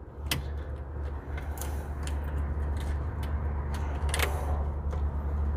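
Plastic bus-bar strip being pulled by hand off the terminals of a Toyota Prius hybrid battery's cells, giving a few small clicks and a sharper snap about four seconds in, over a steady low hum.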